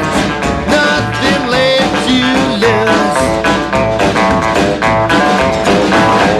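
Band playing the instrumental close of a blues-tinged rock and roll song, guitar to the fore over a steady beat.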